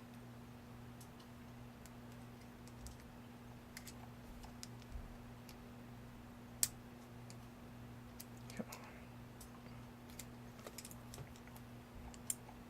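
Faint, scattered small clicks and taps of a flat-head screwdriver prying at the C-clip on a padlock's lock cylinder, with one sharper click about halfway through, over a steady low hum.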